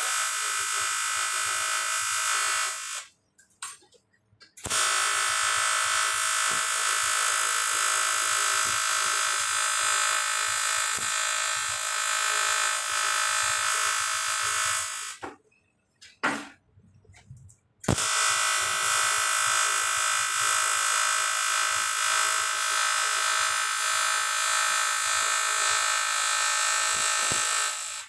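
TIG welding arc buzzing steadily as filler rod is fed in. It runs in three long stretches, stopping briefly about three seconds in and again for a couple of seconds around fifteen seconds in, with a few faint clicks while the arc is off.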